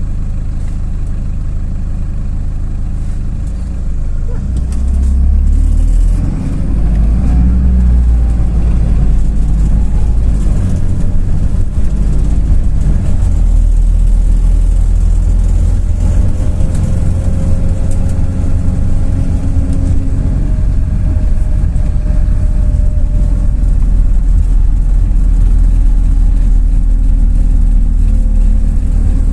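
MAZ-206 city bus's diesel engine idling, then pulling away about four seconds in and accelerating, with a brief drop near six seconds in, before running steadily, heard from inside the bus.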